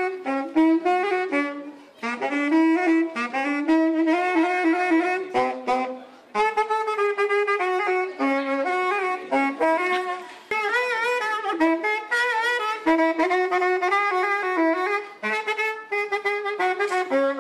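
Solo woodwind instrument playing a slow melody in phrases, with a short break about every four seconds and a wavering, vibrato-like pitch in places.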